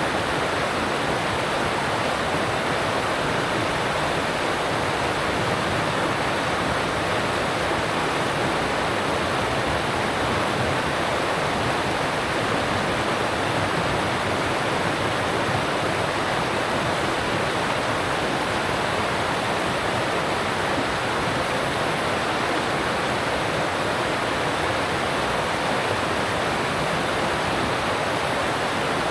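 Alpine stream rushing over rocks: a steady, unbroken rush of water with no change in level.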